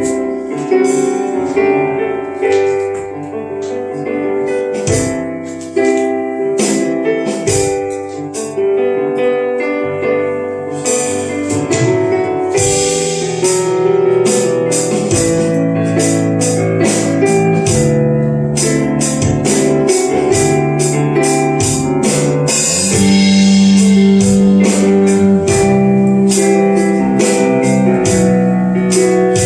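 Slow instrumental worship music on keyboard, sustained piano-like chords, with percussion strokes joining about ten seconds in at roughly two a second. The music grows fuller and louder, with a stronger bass, near the end.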